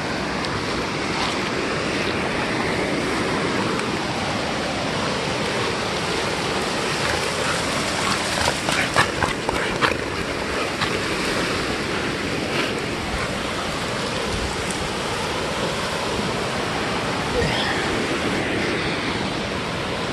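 Ocean surf breaking and washing up a sandy beach, a steady rush of water noise. About halfway through comes a brief run of sharp splashes and knocks.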